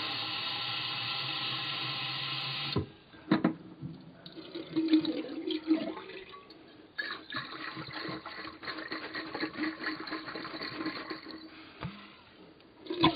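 Tap water running into a glass shisha bowl for its final cold-water rinse, cutting off about three seconds in; then irregular splashing and pouring of water in the washbasin as the bowl is swirled and emptied.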